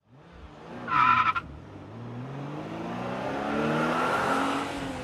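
Car sound effect: a short, loud tire squeal about a second in, then an engine revving with rising pitch that swells and eases off near the end.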